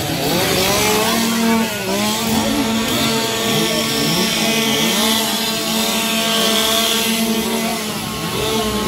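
Several chainsaws revving at once: many overlapping rising and falling whines over a steady hum.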